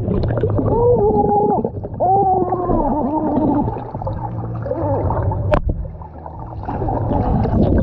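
Muffled underwater sound: water gurgling around the microphone, with voices heard through the water as wavering, gliding tones. There is a sharp click about five and a half seconds in.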